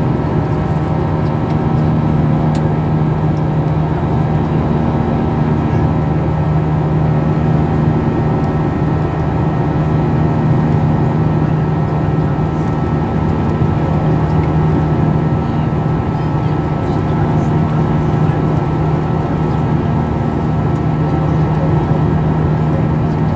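Steady cabin noise of a Boeing 737-800 climbing out after takeoff, heard from a window seat beside the CFM56-7B turbofan. It is a loud, even drone with a low hum and several steady whining tones above it.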